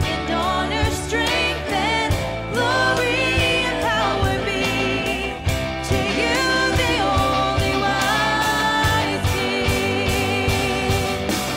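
Christian worship song: singing with vibrato over a band with a steady bass line.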